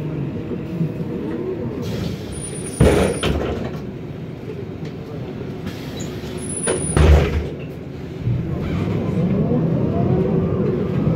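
Inside a MAN Lion's Classic CNG city bus, the drivetrain whine of its ZF Ecomat six-speed automatic and differential falls in pitch as the bus slows. Two short, loud hisses of compressed air come about three and seven seconds in. Near the end the whine rises again as the bus accelerates.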